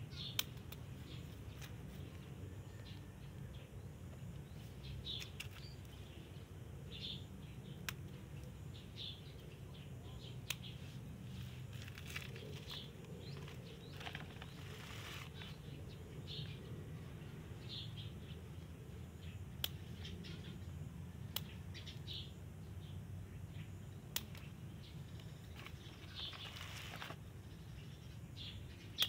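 Hand pruning shears snipping bonsai twigs: single sharp clicks every few seconds. Short bird chirps and a steady low hum run underneath.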